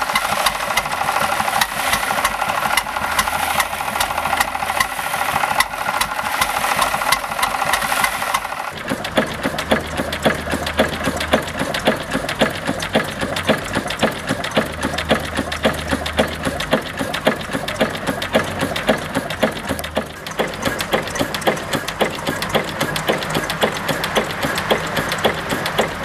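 A small flywheel stationary engine running with a fast, even knock. About nine seconds in, this gives way to a 1924 Crossley horizontal stationary engine running with a steady, regular beat.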